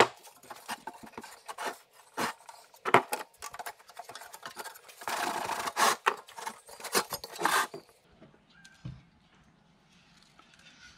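Scattered clicks, scrapes and rubbing as a removed car heater core assembly is handled, with a busier stretch of scraping about halfway. A single thump comes a little before the end.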